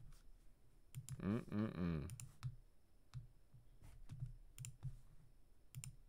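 Faint clicks from a computer mouse, several short clicks spread out and some in close pairs, as a web page is scrolled. A brief low hum from a man's voice about a second in.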